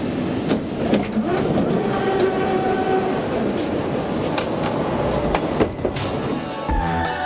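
Inside a Copenhagen Metro train at a station stop: a steady rumble with a faint whine over the first few seconds, then passengers stepping off through the opened doors. Music with a beat comes in just before the end.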